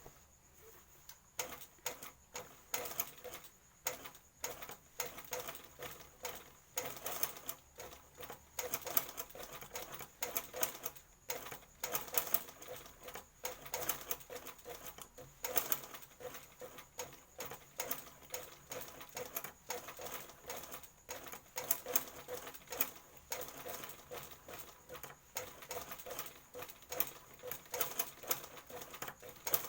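Sewing machine stitching a skirt hem in short, irregular runs with quick stops in between, its mechanism giving a dense clicking.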